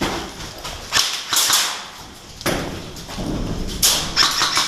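A series of sharp thuds and cracks, a handful of single strokes about a second apart and a quick run of them near the end.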